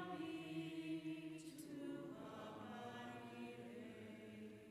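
Congregation singing a slow sung prayer response of long held notes, the pitch changing about two seconds in and fading near the end.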